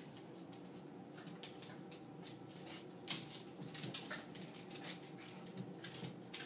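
Two small dogs play-fighting on a hardwood floor, their claws clicking and skittering on the wood. The clicks come thicker from about three seconds in, with a sharper knock there as the loudest sound.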